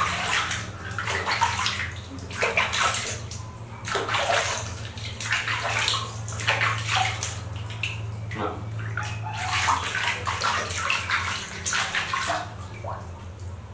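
Water splashing and sloshing as hands scoop it from a plastic basin and pour it over a baby monkey, in irregular bursts over a steady low hum.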